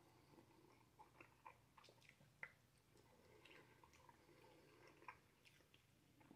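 Faint, wet chewing of syrup-coated sausage: scattered small mouth clicks and smacks.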